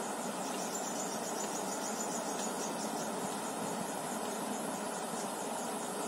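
Muddy floodwater rushing steadily over a low man-made river weir, with a faint high insect chirping in pulses, clearest in the first half.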